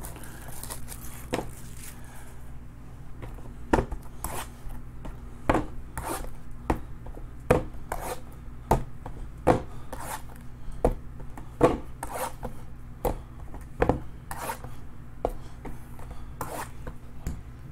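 Box cutter slicing and scraping through the shrink wrap on cardboard trading-card boxes: a run of short, sharp scrapes and ticks, about one or two a second, some louder than others.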